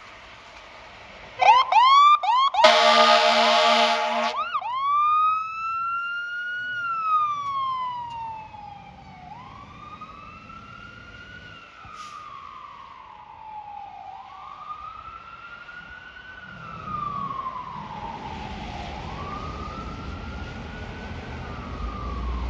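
Fire truck's electronic siren giving a few quick yelps, then a long blast of its air horn, then the siren in a slow rising-and-falling wail that grows fainter.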